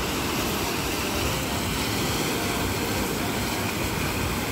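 SUVs driving slowly through deep floodwater: a steady rushing wash of water pushed up by the tyres, mixed with engine noise.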